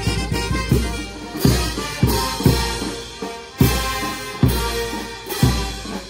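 Live brass band playing: sustained trumpet, saxophone and sousaphone lines over a bass drum and hand cymbals striking a steady beat, the heavy strikes coming about once a second in the second half.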